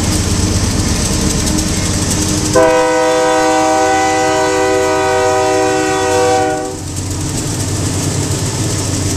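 Diesel freight locomotives of a Union Pacific train passing close by, their engines and wheels making a steady rumble. About two and a half seconds in, the lead locomotive sounds one long multi-note air horn blast of about four seconds.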